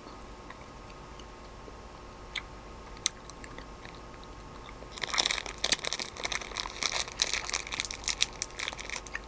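Plastic Haribo gummy-bear bag crinkling as a hand rummages in it, starting about halfway through after a few faint clicks.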